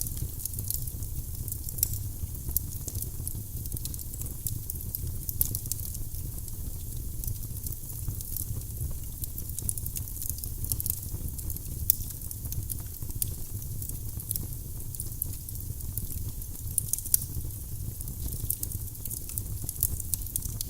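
Firewood burning in a fireplace, crackling with frequent sharp, irregular pops over a steady low rumble of the flames.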